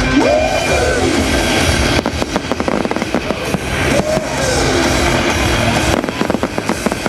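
Fireworks display: rapid clusters of crackling bangs about two seconds in and again near the end, over loud music played with the show.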